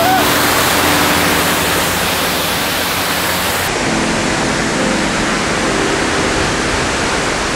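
High-pressure washer spraying a steady jet of water onto a car and the wet ground, rinsing off the wash foam, a loud, even hiss of spray over a steady low hum.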